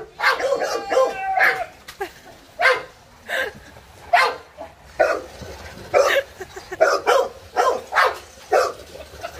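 Dogue de Bordeaux dogs barking again and again in short separate barks, with one longer drawn-out cry about half a second in.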